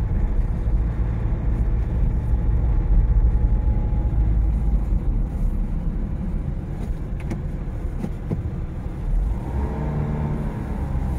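Car interior noise while driving slowly: a steady low rumble of engine and tyres on the road.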